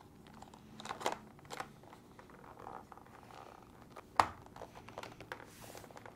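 Light plastic clicks and taps as a refrigerator door mullion divider is pushed down onto the door's tabs, with one sharp click just after four seconds.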